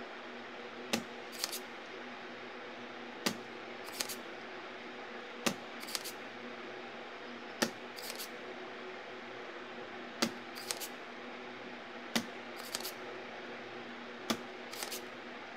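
Spring-loaded desoldering pump firing with a sharp snap about every two seconds, seven times, each snap followed by lighter clicks as the plunger is pushed back down to re-cock it. It is sucking solder off the pins of a CRT TV's flyback transformer to free it from the board.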